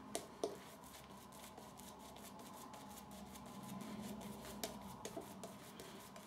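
Faint crackly brushing of a shaving brush working soap lather on skin, with a few sharper clicks about half a second in and again around five seconds in.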